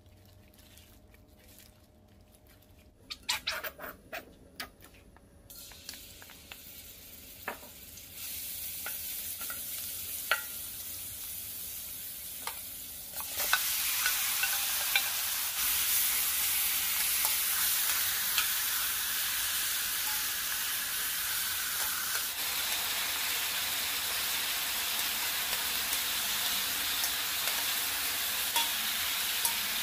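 Chicken pieces searing in a hot oiled pan with minced garlic. A faint sizzle builds from about six seconds in, jumps to a loud, steady sizzle when the chicken is tipped in about thirteen seconds in, and carries on with occasional clicks of tongs turning the pieces.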